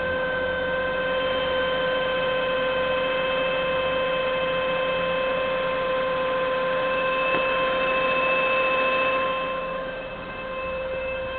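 Saab 9-5's 2.0-litre turbocharged four-cylinder engine running with a steady, high-pitched whine that holds one pitch. The whine is present until the engine warms up and was traced to a thick build-up of oil sludge in the sump clogging the oil pickup strainer.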